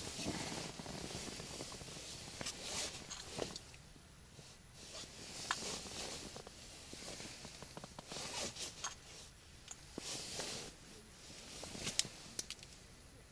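Faint rustling of clothing and fabric, with scattered small clicks and scrapes, as fishing gear is handled on the ice inside a small tent. A sharp click near the end is the loudest sound.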